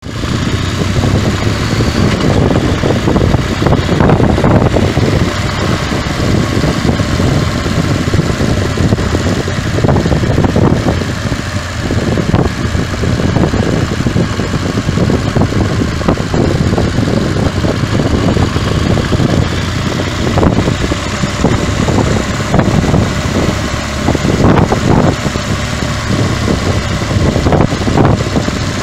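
Motorcycle on the move, its engine running under a loud, uneven rush of wind buffeting the microphone.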